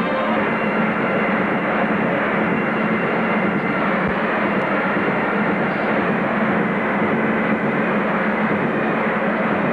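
Steady din of a large crowd talking and moving about in a sports hall, with a steady low hum underneath.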